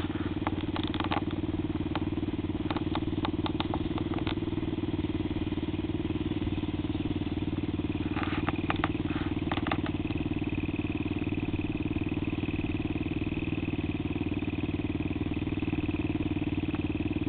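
ATV engine idling steadily, with scattered clicks and rattles in the first few seconds and again around eight to ten seconds in. A thin, steady high whine joins about ten seconds in and lasts almost to the end.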